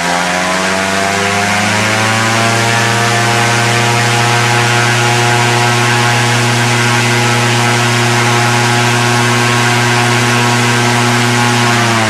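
Suzuki car engine on a microlight trike driving a propeller at full throttle in a static thrust test. It revs up over the first couple of seconds, holds steady at about 6000 rpm with the propeller pulling over 190 kg, then is throttled back near the end.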